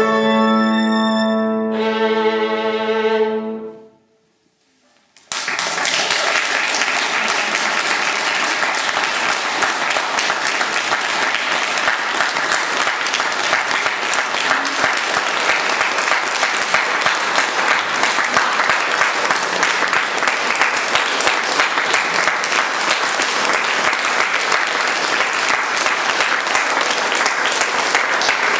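Violin and grand piano holding the final notes of a piece, which die away about four seconds in. After a moment's silence, an audience breaks into long, steady applause.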